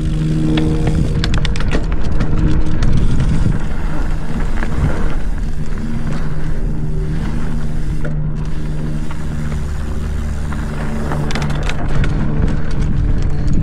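Mountain bike rolling fast down a dirt trail: a steady hum from the tyres, with clicks and clatter from the bike over bumps, thickest about a second in and again near the end.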